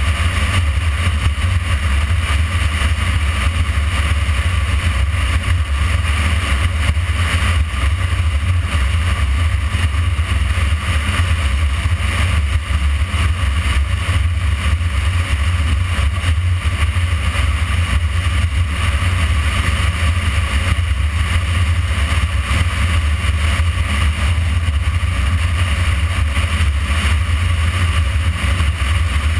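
Motorcycle riding steadily at speed, its engine drone buried in a heavy, even rumble of wind on the bike-mounted microphone.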